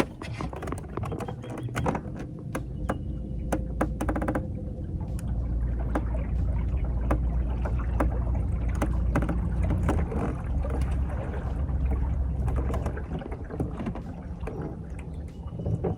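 Small fishing boat on the move: a low rumble that builds about five seconds in and fades near the end, with scattered knocks and clicks against the hull.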